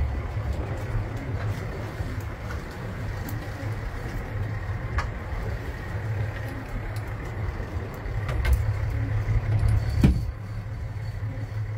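Boat engine running with a steady low rumble, with a few scattered faint clicks and one sharp knock about ten seconds in.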